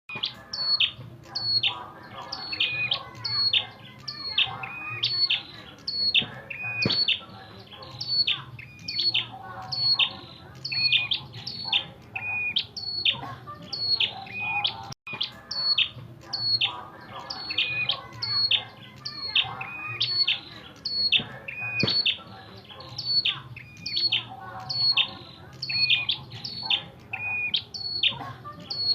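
Red-headed prenjak giving its fighting call: a fast, steady series of sharp chirps, each dropping from a high note to a lower one, over a faint low hum.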